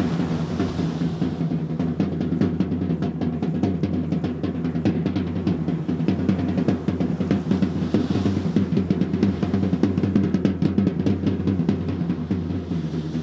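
Live percussion: drums played in a fast, dense rhythm, with rolls of rapid strokes.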